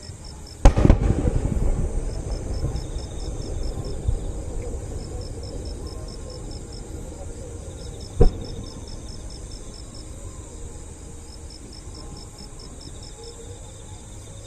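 A large aerial firework bursting with a loud bang about a second in, its rumbling echo trailing off over several seconds, then a second sharp bang about eight seconds in. Crickets chirp steadily in a fast pulsing rhythm throughout.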